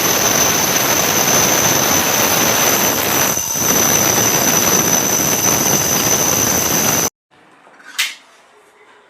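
Electric power tool running at full speed, a dense loud noise with a steady high whine, easing for a moment about three and a half seconds in and stopping suddenly about seven seconds in; a single sharp click follows about a second later.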